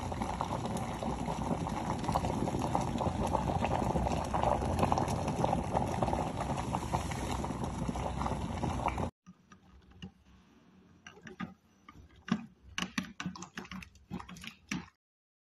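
Water boiling hard in an electric kettle: a dense, steady bubbling and crackling that cuts off suddenly about nine seconds in. After it come quieter scattered clicks and knocks.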